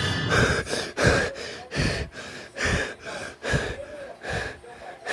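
A person breathing fast and hard: six quick, gasping breaths, each about a third of a second long, coming at an even pace of a little more than one a second.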